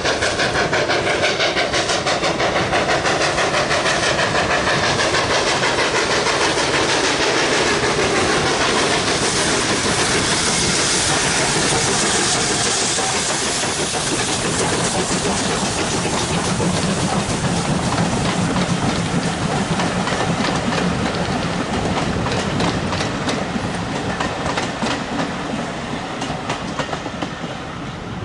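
GWR Large Prairie steam tank locomotive passing with a passenger train: rapid, regular exhaust beats as it approaches, a loud hiss of steam as the engine goes by, then the rattle and clickety-clack of the coaches' wheels over the rail joints, fading near the end as the train draws away.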